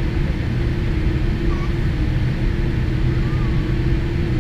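Steady cabin noise inside a Boeing 787-8 taxiing slowly after landing, its GE GEnx-1B engines at idle: a low rumble with a steady hum.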